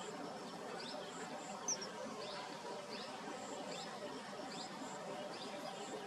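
Outdoor ambience of small wild birds giving many brief, high, downward-sweeping chirps over a steady low murmur, with one sharper chirp a little under two seconds in. Short high paired notes recur about once a second.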